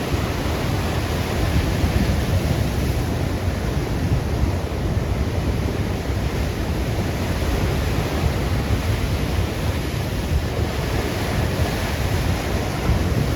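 Ocean surf breaking and washing up a sandy beach, a steady loud rush, with wind buffeting the microphone.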